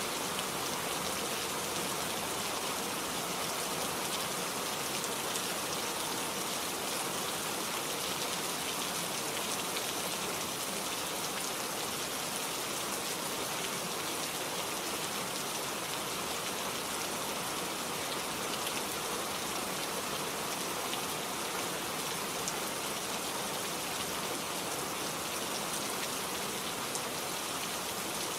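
Steady rain falling in a forest: an even hiss of rain on leaves and ground, with scattered individual drops ticking through it.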